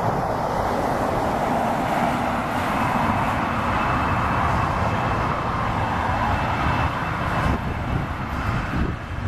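Boeing 757 jet engines running at low thrust as the airliner taxis slowly: a steady rushing noise with a faint high whine above a low rumble. The rushing eases a little about seven seconds in.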